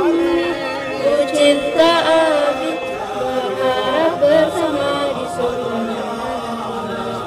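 A group of female students' voices singing a slow, melodic chant, their pitch gliding and bending on long held notes.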